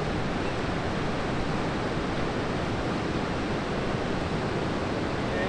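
Steady, even rush of ocean surf breaking, with no single wave crash standing out.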